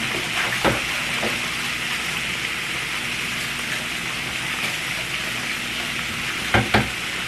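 Food frying in a pan, a steady sizzle, with a few short knocks near the start and near the end.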